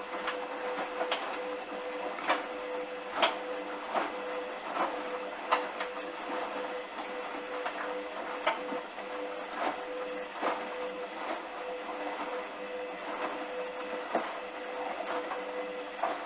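Washing machine drum turning during a wash cycle: a steady motor hum with irregular clicks and knocks as the load tumbles, stopping near the end.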